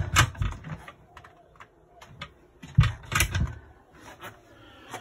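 Caravan cupboard doors with round metal knob catches being opened and shut by hand: a string of separate clicks and knocks, the loudest cluster about three seconds in.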